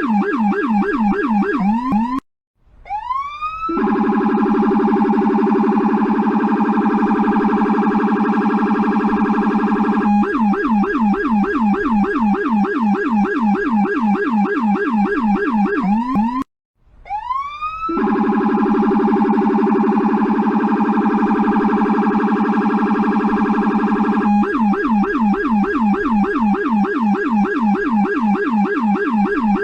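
Electronic police siren cycling through its tones: a fast yelp, a brief dropout, a rising wail that runs into a very rapid steady trill, then back to the yelp. The cycle repeats, with dropouts about 2 and 16 seconds in.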